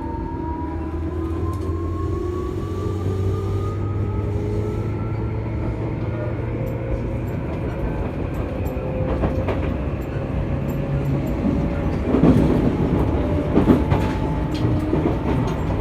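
Tobu 9000 series electric train, prototype set 9101F, running under AFE chopper control, with the chopper's tones rising steadily in pitch as the train picks up speed over a low running rumble. About twelve seconds in, a spell of louder clattering from the wheels on the track cuts in.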